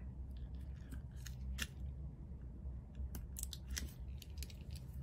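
Short scattered clicks and scratches of a metal hook weeding tool picking unwanted adhesive vinyl off its backing sheet, over a low steady hum.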